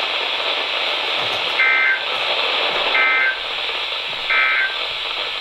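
NOAA Weather Radio end-of-message SAME data: three short, identical two-tone digital bursts about 1.3 s apart, starting about one and a half seconds in, over steady receiver hiss. They mark the close of the flood warning just read.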